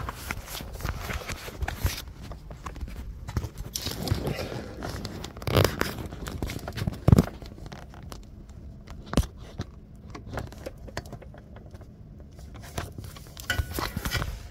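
Handling noise from a phone held close to the microphone: uneven rustling and scrapes with scattered clicks and knocks, the loudest about five and a half, seven and nine seconds in.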